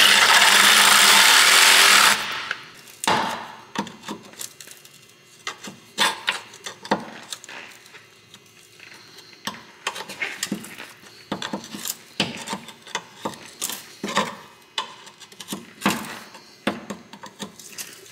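Reciprocating saw blade cutting through the old bushing's metal sleeve left pressed in the subframe, stopping suddenly about two seconds in. Then a run of sharp metal scrapes and clicks as a pry bar works the cut sleeve loose.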